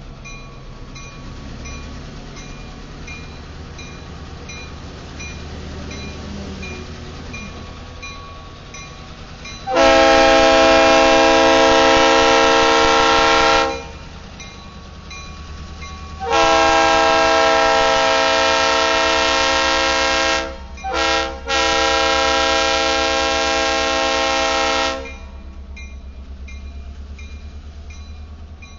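EMD GP38-2 diesel locomotive's air horn sounding the grade-crossing signal: long, long, short, long, a loud multi-note chord. The locomotive's two-stroke diesel engine runs low and steady underneath as it rolls past.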